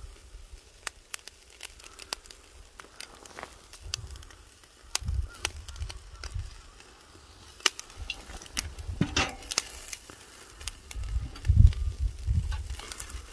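Oak-charcoal barbecue fire crackling with scattered sharp pops and snaps while pork neck sizzles on the grill, with a few low rumbling bumps, the loudest near the end.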